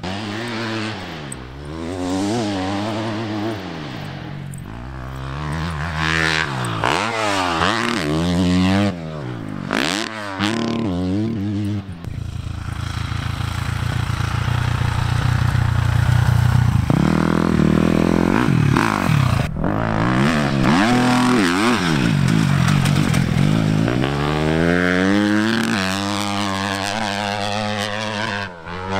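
A KTM four-stroke motocross bike's engine revving up and falling back again and again as it is ridden hard around a dirt track, with abrupt cuts between takes. About halfway through it holds a steadier low note for a few seconds before climbing again.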